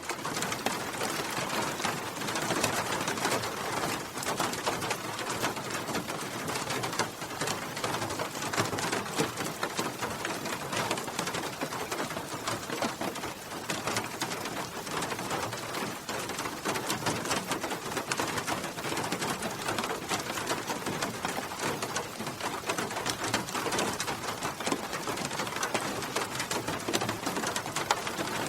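Steady heavy rain, a dense patter of drops hitting a hard surface, with no thunder clap.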